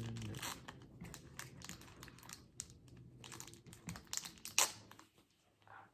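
Foil wrapper of a Pokémon trading card booster pack crinkling and crackling as it is torn open and handled, in quick irregular crackles, the sharpest about four and a half seconds in.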